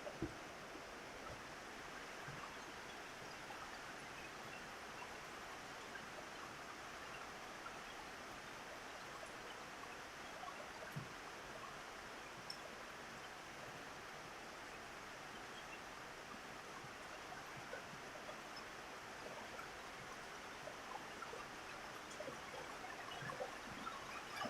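Steady rain on a roof: an even hiss dotted with small drip ticks, with a few louder single taps, one near the start, one about halfway and one near the end.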